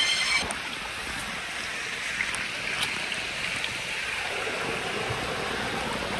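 Small stream running, a steady even rush of water, with a couple of faint clicks.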